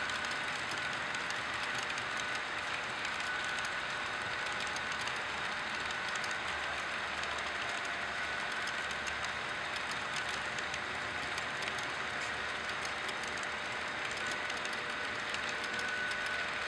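HO scale model freight train rolling along the track: a steady rolling hiss with faint light clicks, and a thin high whine that drops away in the middle and comes back near the end.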